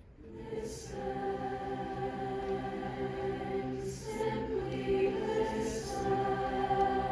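Choral singing: several voices holding long sustained chords. They come in just after the start, with a few soft breathy or sibilant moments between the held notes.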